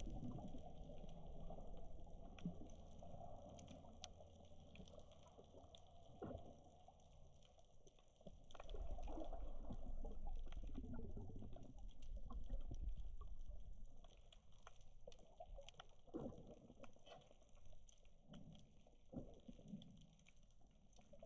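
Faint, muffled underwater water noise: a low rumbling swish with scattered small clicks, louder for several seconds in the middle.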